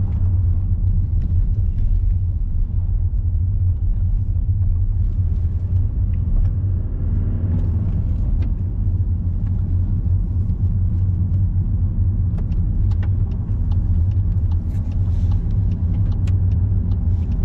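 Car driving on the road, heard from inside the cabin: a steady low rumble of engine and tyre noise.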